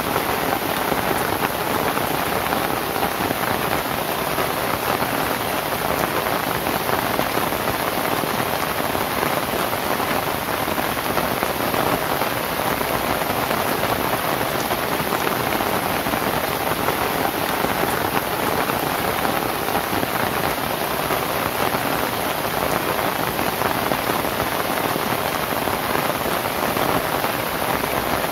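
Steady, even rain falling on a thatched roof of lontar palm leaves.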